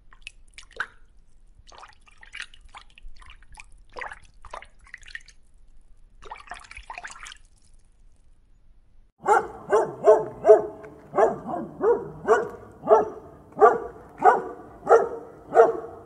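Faint water drips and clicks for the first half, then a dog barking, a run of about a dozen barks at a steady pace of roughly two a second.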